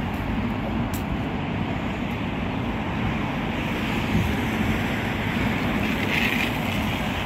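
Steady outdoor background noise of road traffic, with wind rumbling on the microphone.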